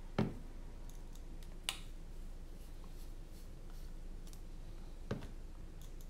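Small clicks and knocks from a hex driver turning screws out of a drone frame held in the hand: a knock right at the start, a sharp click a little under two seconds in, and another knock about five seconds in, over a faint steady hum.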